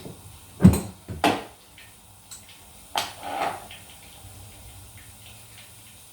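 Water still trickling from a tap because the stop cock has not fully shut off, a faint steady hiss under a few sharp knocks and clunks in the first three seconds.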